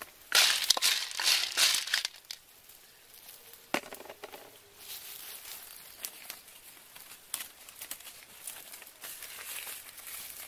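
Dry leaves rustling and crinkling in a few loud bursts over the first two seconds, a sharp click about four seconds in, then light scattered crackling from the wood fire.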